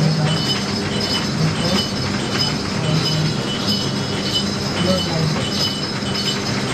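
Bell on a running juice machine tinkling in a steady, clockwork-like rhythm, about twice a second, over a steady low hum and street noise.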